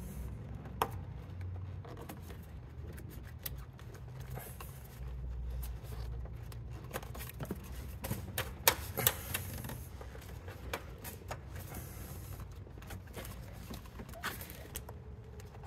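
Hands working a factory rubber radiator hose onto its fitting in a car's engine bay: scattered light clicks, knocks and rubs of rubber and plastic being handled, with one sharper knock about nine seconds in, over a low steady hum.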